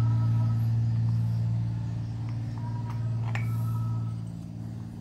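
A steady low mechanical hum from a background machine, easing off slightly near the end. Over it are a few light clicks and taps as a two-stroke brush cutter's flywheel magneto is handled and turned against its ignition coil.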